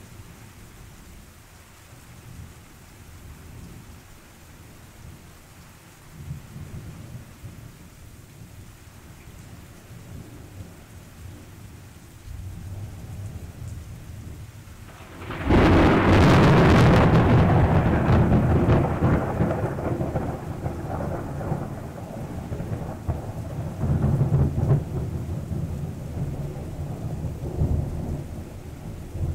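Thunderstorm: rain falling steadily under low rumbling thunder. About halfway through, a sudden loud thunderclap breaks and rumbles on at length, swelling again near the end.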